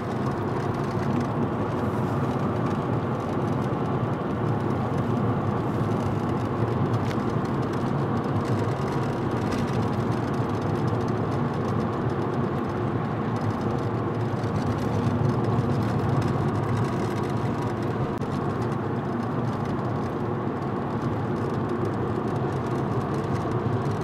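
Steady road and engine noise inside a moving car's cabin, with tyres running on wet asphalt.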